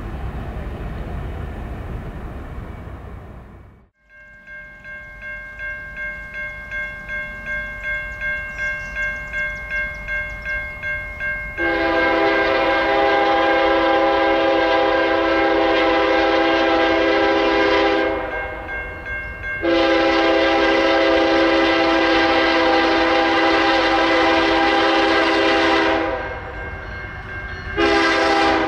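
A freight train rumbling away, then after a cut a grade-crossing bell ringing with an even pulse and growing louder. Then the air horn of the approaching BNSF ES44AC locomotive sounds two long blasts and a short one for the crossing.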